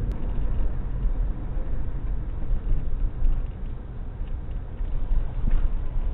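Steady low rumble of a van driving, engine and road noise heard from inside the cabin, with a single sharp click at the very start.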